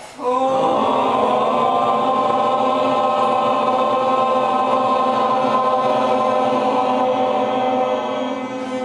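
A group of people chanting one long 'Om' together on an out-breath, a steady held note of about eight seconds that eases off slightly near the end.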